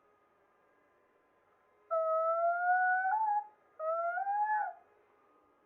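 A cat yowling two long, drawn-out calls about a second and a half apart, each slowly rising in pitch.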